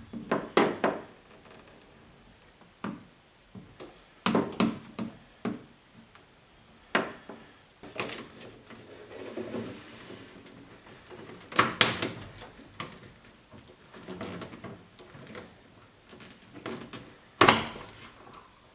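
Irregular metal clicks, taps and clunks of hand tools working inside a truck door, prying around the door handle to reach its retaining clip. One sharp clank near the end is the loudest.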